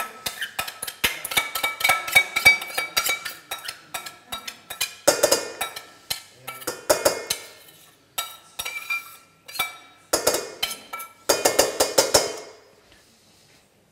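Metal spoon scraping and clinking against the inside of a stainless steel mixing bowl, quick irregular clinks with a ringing metal note, as creamy coleslaw dressing is scraped out of it.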